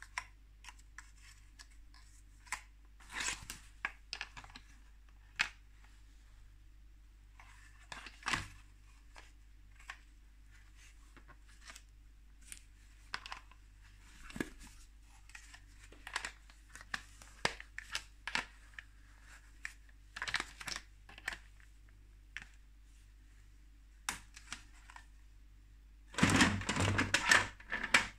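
Hard plastic toy pieces of a Playmobil Dragons figure clicking and rustling as they are handled with chainmail gloves, in short scattered bursts. Near the end comes a loud clatter lasting about two seconds as toys are shifted about in a plastic bin.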